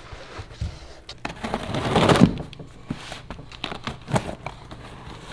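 Cardboard box being handled and its taped lid worked open: a scraping swell about two seconds in, then scattered light knocks and taps.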